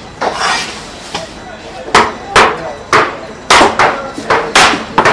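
Heavy fish knife chopping mackerel tuna on a cutting board: a quick run of about eight sharp blade strikes, starting about two seconds in.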